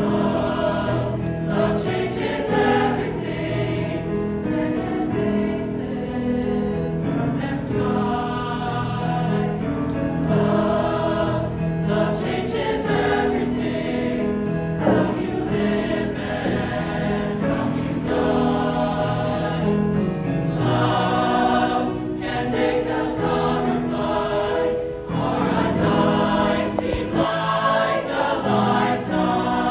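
Mixed choir of male and female voices singing.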